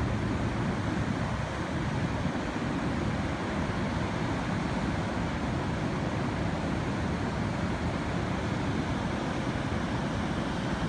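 Steady rush of whitewater from High Falls on the Muskoka River, running higher than normal in a spring flood.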